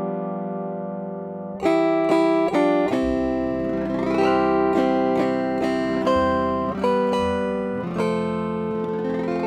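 Chromaharp, an autoharp-type chorded zither, played as a slow hymn: a held chord rings and fades for about a second and a half, then strummed chords and plucked melody notes follow with a low bass line underneath.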